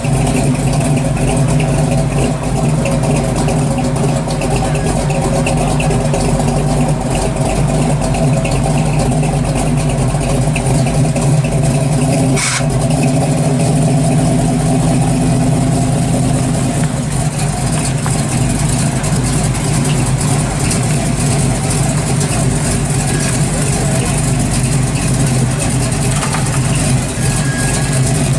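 Classic Chevrolet C10 pickup's engine running at a steady idle through its exhaust, with one sharp click about halfway through. In the second half the truck moves off slowly.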